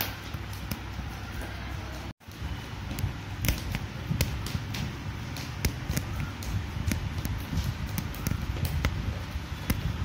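Irregular light ticks and taps of a hand-embroidery needle piercing and being drawn through taut fabric stretched on a frame, over a steady low hum. The sound cuts out for an instant about two seconds in.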